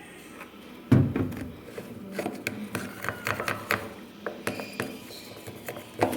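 Handling of a bowl, dish-soap bottle and stirring utensil while a glue slime mixture is worked: a sharp knock about a second in, then irregular clicks, knocks and rubbing.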